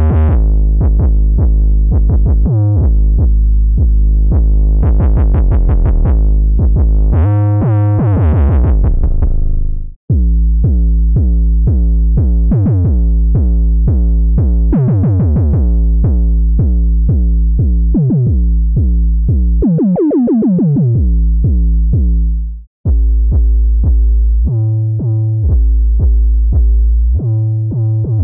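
Omnisphere software synthesizer playing 808-style bass patches, including 'The 808 Moog Phat' and 'The 808 Square'. Deep sub-bass notes come in quick repeated runs, with a few falling pitch slides. The sound cuts out briefly twice as the patch changes.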